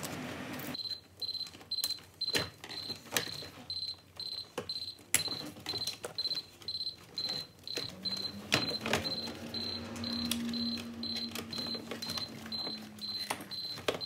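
A vehicle's warning chime beeping rapidly and evenly, about three high beeps a second, starting about a second in. Under it come sharp clicks and knocks of plastic dash trim being pried loose and handled.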